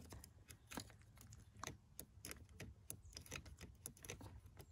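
Faint, irregular small clicks and taps of a multimeter test probe being worked into the pins of a round multi-pin plastic wiring connector.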